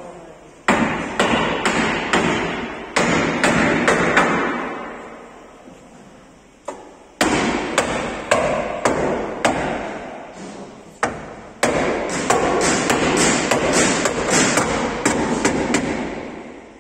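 Hammer blows struck through a wooden block onto the sheet steel of a damaged truck cab that is held under chain pull on a straightening bench, with the cab ringing after each blow. The blows come in quick irregular runs, with a short pause partway through.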